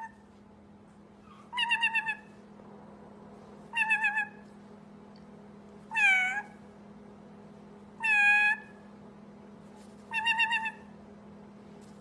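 White-bellied caique making cat-like meow calls, a short call about every two seconds, some with a quick warble and some dipping then rising in pitch.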